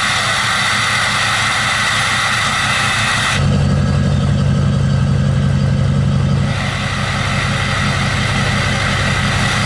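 Ford 6.0 Powerstroke V8 turbo-diesel idling just after a cold start, through a DPF-back exhaust. About three seconds in, the sound turns deeper and slightly louder for about three seconds, then settles back to a steady idle.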